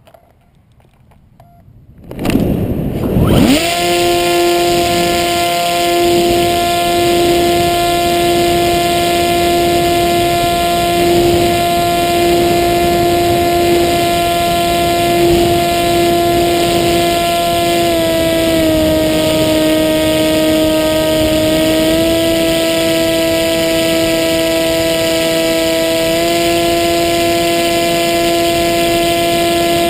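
Hacker A30L brushless electric motor and propeller on a Maxi Swift flying wing, quiet at first, then spinning up sharply about two seconds in as the plane is launched and settling into a loud, steady high whine with wind rush, heard from the camera on the airframe. The pitch drops a little for a few seconds past the middle as the throttle eases, then comes back up.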